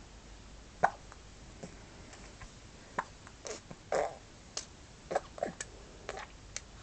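Hiccups: a string of short, sharp sounds at uneven spacing, the loudest about a second in, with a few smaller clicks and catches in between.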